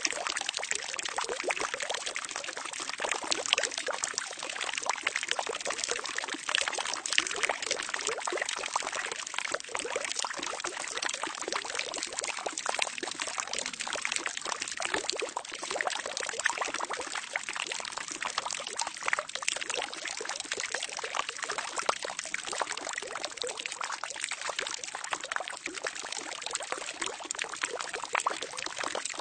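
Water pouring steadily into a barrel, a continuous splashing trickle with many small drops and bubbles.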